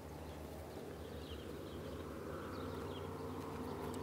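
Faint outdoor ambience: a steady low hum, with small high bird chirps now and then.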